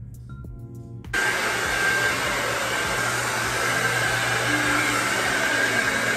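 Handheld hair dryer blowing, switched on abruptly about a second in and running loud and steady with a faint whine. Before it, a few notes of background music.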